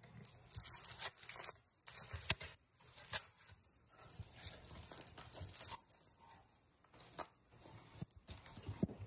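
Cats playing with a cardboard box and crinkly paper streamers: irregular rustling, scratching and light knocks, with one sharp knock about two seconds in.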